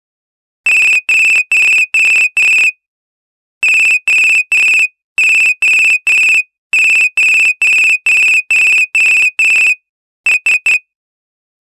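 Sharp J-SH04 mobile phone ringtone: a single high electronic tone beeping in groups, five beeps, then three, three and about seven, with short pauses between the groups, ending in three quick short beeps.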